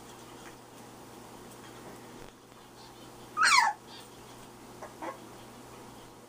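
A month-old red nose pit bull puppy gives one short, loud yelp about halfway through, a high cry that falls in pitch. A couple of faint puppy squeaks follow about a second later.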